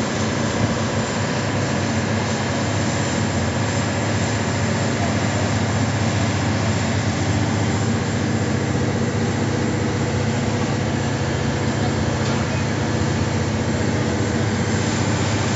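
Ship's engines running with a steady low drone, even throughout.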